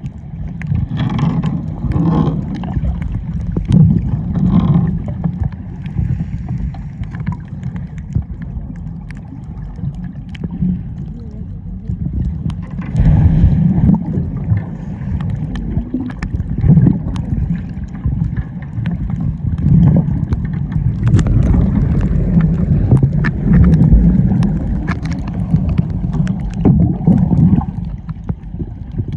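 Muffled, irregular sloshing and gurgling of seawater around a waterproof camera in the sea, a low rumble with scattered clicks and a few louder surges.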